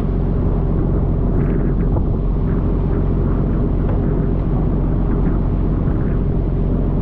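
Steady drone of a pole-and-line tuna boat's engine and water-spray pumps, mixed with the hiss of water jets spraying onto the sea and brief splashes now and then.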